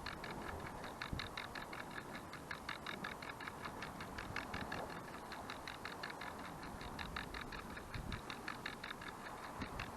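Clockwork IKEA kitchen timer ticking as it unwinds and turns the action camera mounted on top of it: a rapid, even run of ticks, with a couple of faint low knocks.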